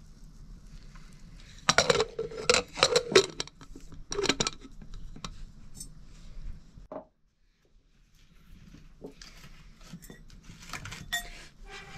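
Metal cooking pots and utensils clanking in a kitchen. There is a quick run of ringing clangs about two seconds in, another few around four seconds, and lighter clinks near the end.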